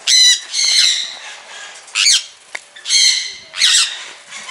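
Sun conures (small orange-and-yellow parrots) squawking: about six harsh, high-pitched calls in quick succession, some short and some drawn out for close to a second.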